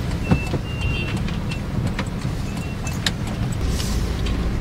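Steady low rumble of a car running, with a few faint clicks.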